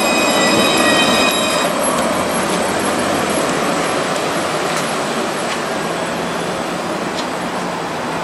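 Barcelona low-floor electric tram running on street track: steady rolling noise, with a high whine from its electric drive for the first couple of seconds.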